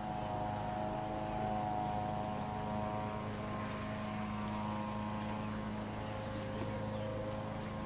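An engine running steadily at an unchanging pitch, a continuous drone.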